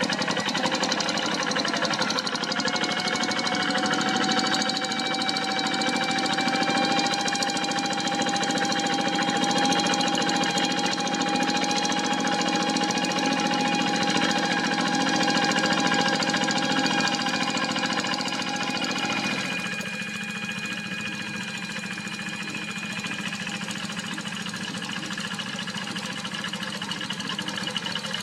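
Walk-behind two-wheel tractor's single-cylinder diesel engine running with its pitch rising just after the start, then holding steady. About twenty seconds in it drops to a lower, quieter run.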